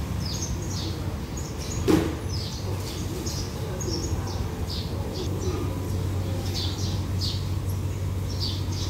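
Small birds chirping over and over, short high downward chirps, over a low steady hum. A single loud thump about two seconds in.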